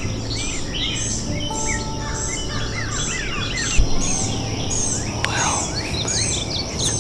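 Woodland birds chirping and calling in a morning chorus, with one high chirp repeating about twice a second over a steady high-pitched whine. A single thump sounds just under four seconds in.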